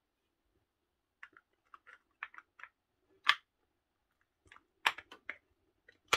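Irregular clicks and light knocks of metal and plastic drill parts being handled as the metal gearbox housing is seated onto the motor housing of a Makita 8410BV drill. They start about a second in, with sharper knocks about three seconds in and again near five seconds.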